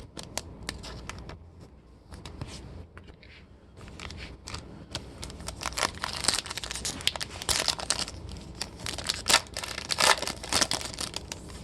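A foil trading-card pack wrapper crinkling as it is torn open, a quick run of crackles that grows louder and busier about halfway through.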